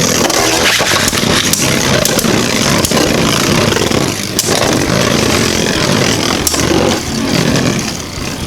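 Two Beyblade Burst spinning tops, Hazard Kerbeus and Vise Leopard, whirring and grinding against each other in a plastic stadium, with sharp clacks as they collide. The sound grows quieter near the end.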